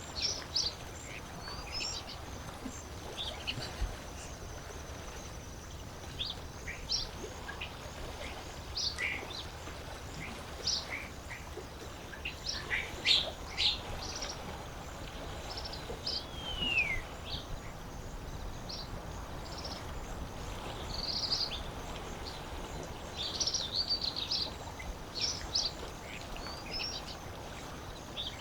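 Wild birds chirping and calling in many short, scattered notes, with one longer call sliding down in pitch about halfway through, over a faint steady background of lake water.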